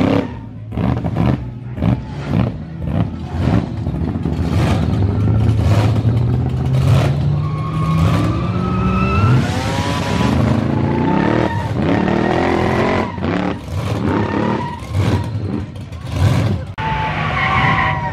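Modified street cars revving their engines hard one after another as they cruise past, led by a supercharged Mercedes sedan; the engine note repeatedly climbs and drops, in quick sharp blips at first and in longer rising sweeps later.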